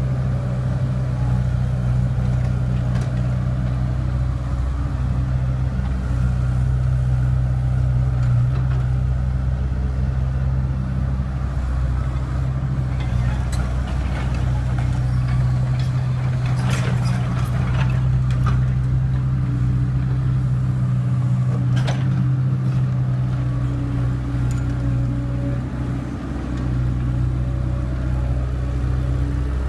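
Excavator's diesel engine running steadily under load while it digs and loads soil, with a few short sharp knocks around the middle.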